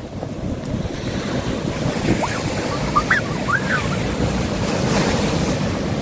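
Rough storm surf breaking and washing over a rock breakwater, with wind buffeting the microphone; the wash surges louder about five seconds in.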